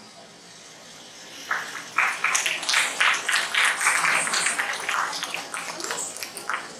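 Audience applauding in a hall, starting about a second and a half in and thinning out near the end.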